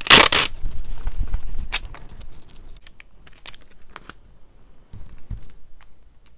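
Clear adhesive tape in a cross-hatch adhesion test: a loud tearing rip right at the start, then rustling and scattered small clicks, and a softer peel of the tape near the end.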